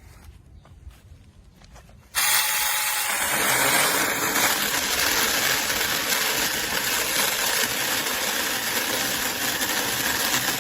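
A few faint clicks, then about two seconds in a Saker Mini 6-inch cordless electric chainsaw starts suddenly and runs loud and steady, cutting through wood.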